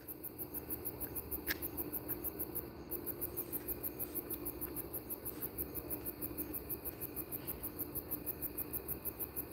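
Crickets chirping in a fast, even high-pitched pulse of about six chirps a second.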